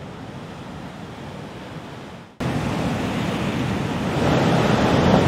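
Ocean surf washing ashore: a steady, quieter rush of waves that cuts off about two seconds in and gives way to louder breaking surf, which swells again near the end.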